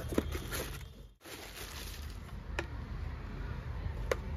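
Plastic packaging crinkling as a boxed marble cutter is handled in its cardboard box. After a brief dropout comes a low steady background with two light clicks from handling the tool.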